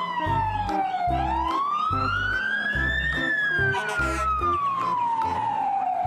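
Fire engine siren wailing: the pitch falls, rises for about two seconds, then slowly falls again. Background music with a steady beat plays underneath.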